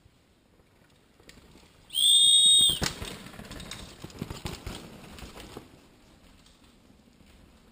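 A single loud, steady whistle blast lasting under a second, warning of an approaching rider. Right after it a downhill mountain bike passes close on the dirt track: tyres crunching over loose soil with many sharp rattling clicks from the bike, dying away a few seconds later.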